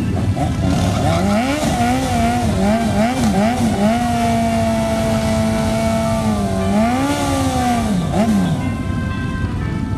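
Sport motorcycle engine revving hard while it spins its rear tyre in a burnout. The revs bounce up and down, hold steady and high for a couple of seconds, rise once more, then drop away near the end.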